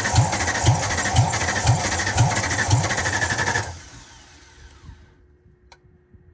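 A 1995 Ford F-150's 5.0-litre (302) V8 being cranked by its starter without firing, with a pulse about twice a second, during a compression test on cylinder one that reads about 150 psi. The cranking stops suddenly a little over halfway through, and there is a single faint click near the end.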